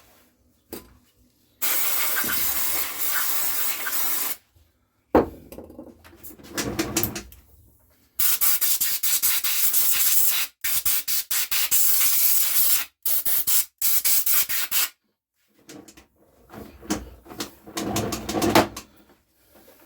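Aerosol can hissing in spray bursts, used to blow dust and dirt out of a Homelite chainsaw. The first burst lasts about three seconds, and a run of quick short bursts follows for about seven seconds. Rubbing and wiping noises come in between and near the end.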